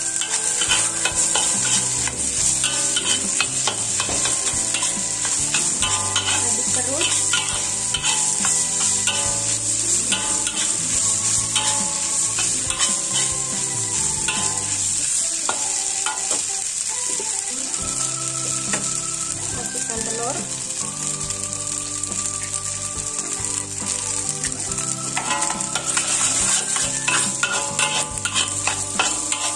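Fried rice sizzling in a hot wok while a metal spatula stirs and scrapes it against the pan: a steady frying hiss with frequent short scrapes and clinks.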